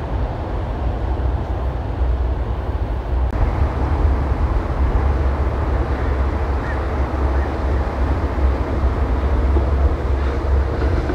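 Wind buffeting the microphone in a steady low rumble, over the even wash of choppy inlet water; the sound shifts slightly about three seconds in.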